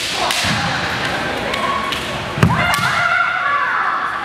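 Bamboo shinai clacking as the kendo fighters press and tap each other's blades, with a heavy thump about two and a half seconds in, typical of a foot stamp on the wooden floor. A long held kiai shout follows to the end.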